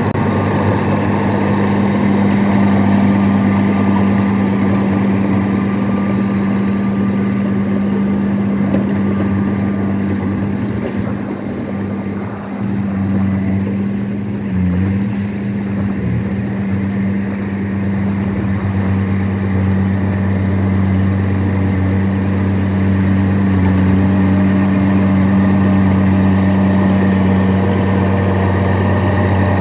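Old bulldozer's diesel engine running steadily, with a short drop in loudness and a wavering pitch about halfway through before it settles back to a steady run.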